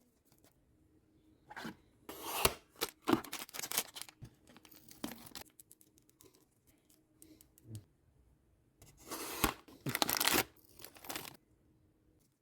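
Blind-box packaging being torn open by hand: wrapping ripped and crinkled in two spells of tearing, the second starting about nine seconds in.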